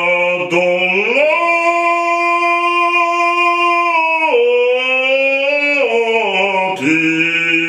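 A man singing in classical operatic style, one voice holding long ringing notes: a low held note, a leap up an octave about a second in, held for a few seconds, then stepping back down to the starting pitch near the end.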